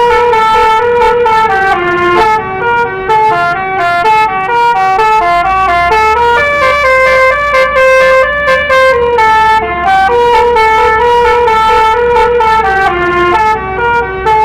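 Basuri 'telolet' multi-tone bus horn playing a melody: a quick run of stepped notes with short breaks between phrases, and one longer held note about halfway through.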